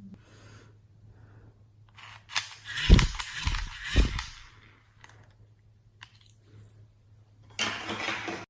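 Slime being handled: sticky clicking and popping, with two heavy low thumps about three and four seconds in, and a shorter burst of popping near the end.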